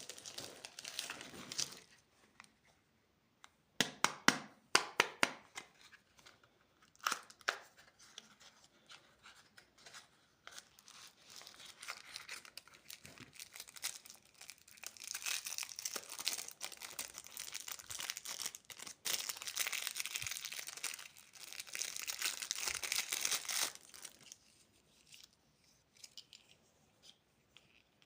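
Plastic candy wrappers crinkling and tearing as packaging is opened by hand. There are a few sharp, loud crackles in the first several seconds, then a long stretch of steady crinkling that stops a few seconds before the end.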